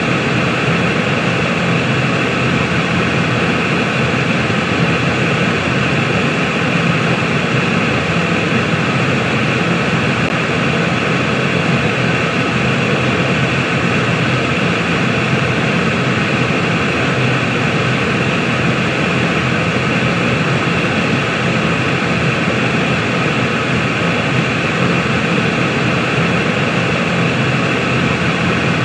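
Continuous white-noise sleep track: an even, unchanging hiss with a low hum beneath it.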